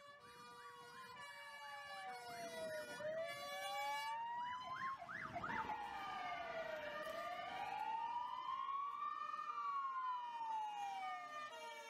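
Several electronic emergency sirens sounding together: a slow wail rising and falling in pitch, a burst of fast yelping sweeps about four to six seconds in, and steady tones held underneath. The sound builds up over the first few seconds.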